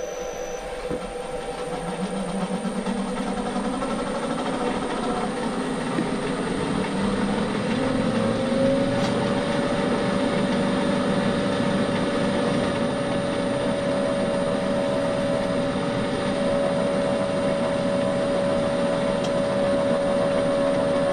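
Bridgeport milling machine's spindle running while a long drill bit feeds down into a metal bar held in the vise, drilling a hole. A steady whine and hum grows louder over the first couple of seconds and steps up slightly in pitch about eight seconds in.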